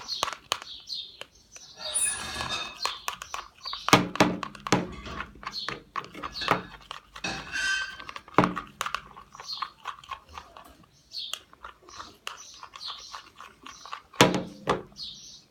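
Sticky homemade slime of PVA glue and Persil detergent being stirred and worked by hand, a run of irregular wet clicks and knocks with a few brief rustling stretches. The slime is still sticky and clinging to the fingers.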